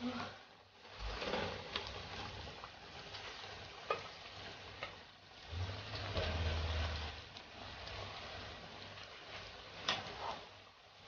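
Food sizzling as it fries in a pan while being stirred, with a few sharp knocks of the utensil against the pan.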